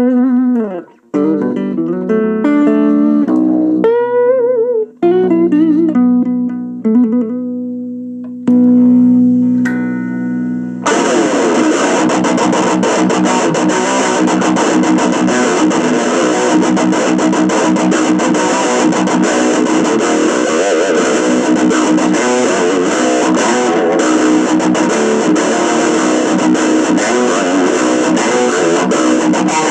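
Electric guitar played through a small 25-watt practice amp with a 5-inch speaker. For about the first eleven seconds it plays single clean notes with string bends. Then it switches to the distortion channel, and thick distorted playing runs on without a break.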